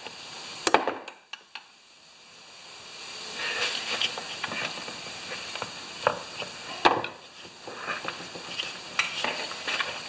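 Rubber lawnmower tire being forced over the rim of a Honda HRA214 wheel by hand, with rough scraping and rubbing. A few sharp knocks come through as steel tools and a C-clamp are handled on the wooden workbench.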